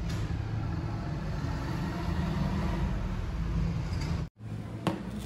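Steady low mechanical rumble of a running motor, cutting off abruptly about four seconds in, followed by a single sharp click.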